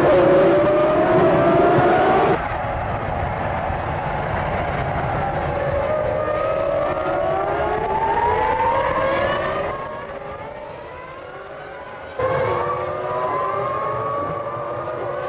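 Formula One cars' 3.0-litre V10 engines accelerating hard, their high pitch climbing again and again as they go up through the gears. The sound cuts abruptly twice, about two seconds in and again near the end.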